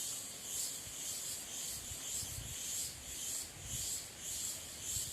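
Cicadas singing in a shrill, continuous chorus that rises and falls in regular pulses, over a low rumble.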